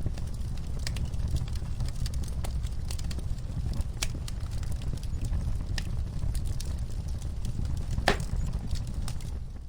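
Wood fire crackling in a fireplace: scattered pops and snaps over a steady low rumble, with one louder crack near the end. The sound fades out at the very end.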